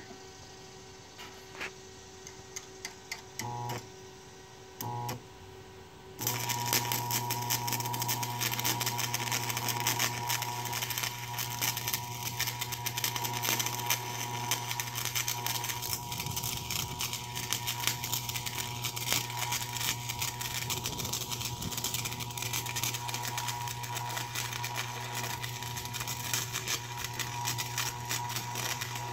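Stick (arc) welding: an electrode arc crackling and sputtering over the steady hum of the welder under load, laying a top bead. Two brief arc strikes come first, and the arc catches and holds from about six seconds in.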